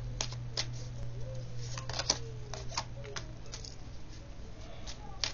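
Oracle cards being handled and one laid down onto a spread on a cloth mat: scattered light clicks and taps, over a steady low hum.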